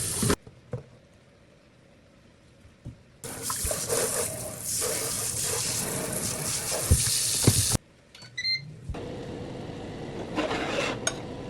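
Water running from a tap for about four and a half seconds, with a couple of knocks near the end, then a quieter steady hiss.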